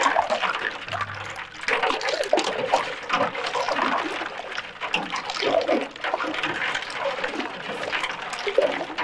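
Juice sloshing and splashing as it is stirred with a long metal spoon in a large steel tub, with the spoon now and then scraping the metal.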